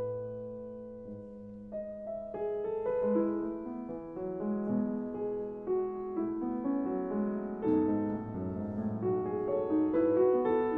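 Background piano music: a flowing run of single notes and chords.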